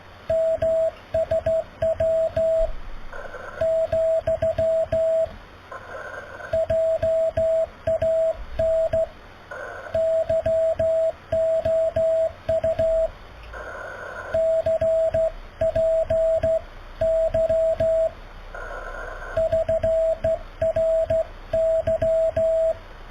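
Slow Morse code (CW) from an amateur radio transceiver: one steady mid-pitched tone keyed on and off in dots and dashes. Receiver hiss fills the longer pauses between words.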